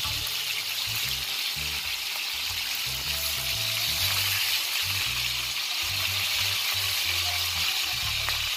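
Fish frying in hot oil: a steady, even sizzle.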